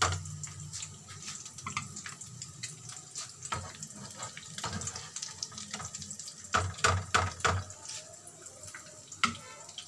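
Potato cutlets frying in hot oil in a pan: a steady sizzle dotted with small crackles. A few louder knocks, near the start and again about seven seconds in, come from the metal slotted spoon lifting the cutlets out.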